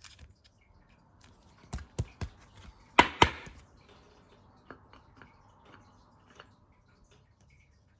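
Sharp taps and clicks of trading cards being handled and set down on a table: three light ones about two seconds in, a louder pair about three seconds in, then faint small ticks.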